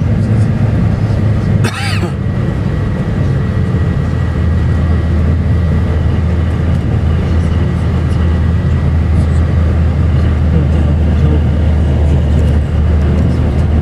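Steady, loud, low engine drone with a faint high whine, and one brief click a little under two seconds in.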